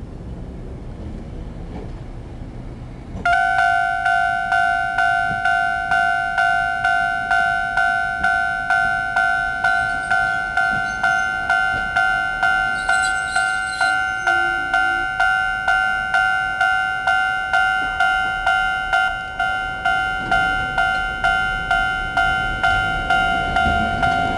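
Japanese railway level-crossing alarm starting up about three seconds in, then ringing steadily at about two strokes a second as the barriers come down. Near the end a low rising whine sets in: the tram's motors as it pulls away from the crossing.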